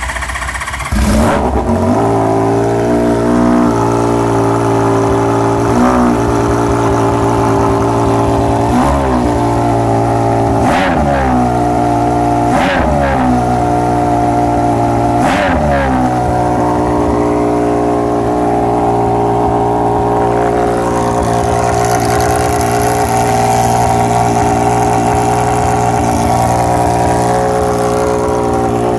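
A 1981 Honda CBX1000's inline-six, breathing through Keihin FCR carburettors and a full titanium AJKO exhaust, running just after a cold start. It is blipped about six times in the first 16 seconds, each rev rising and falling quickly, then settles into a steady idle.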